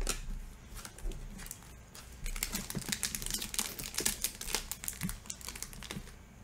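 Foil wrapper of a Panini trading-card pack crackling and crinkling as it is pulled open by hand: a dense run of quick small crackles through the middle, after a single knock at the start.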